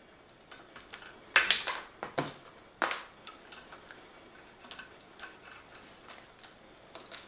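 Scattered clicks and clinks of a folding metal multi-tool being worked against a spot welder's plastic front panel and its fastenings. The loudest clack comes about a second and a half in, with two more sharp clicks shortly after, then lighter ticking.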